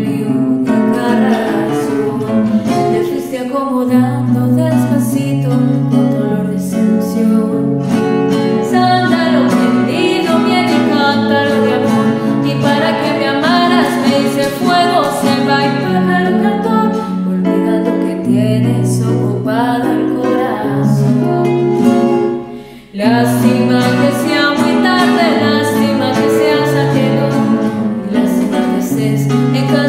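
A woman singing a vals with a classical guitar accompanying her. The music drops out briefly about two thirds of the way through, then carries on.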